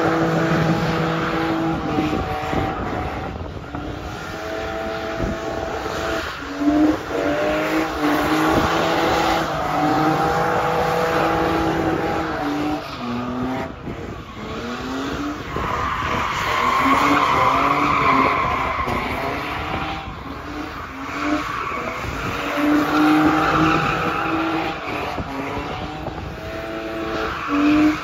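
Two BMW drift cars circling in tandem: engines revving up and down over and over, with the rear tyres spinning and screeching. The tyre screech is loudest a little past halfway through.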